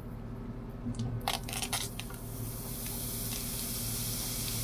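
Butter squeezed from a squeeze bottle onto a hot electric skillet and sizzling. A few short clicks come early, then the sizzle hiss rises about two seconds in and holds steady over a low hum.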